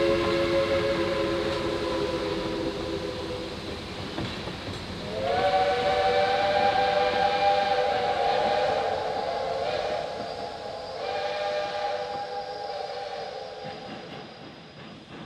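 Geared steam locomotive chime whistles blowing long blasts: a lower chord fading out about three seconds in, then a higher chord sliding up about five seconds in and held for several seconds, with a short break before a last blast that fades away near the end.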